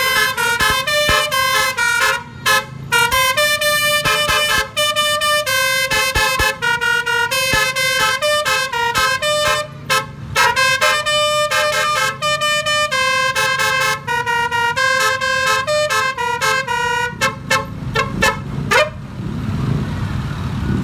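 Basuri musical air horn driven by a DAV air horn tone module, playing a loud melody of short held notes that step up and down in pitch. Just before it stops, near the end, it gives a quick rising sweep, leaving only low vehicle and road rumble.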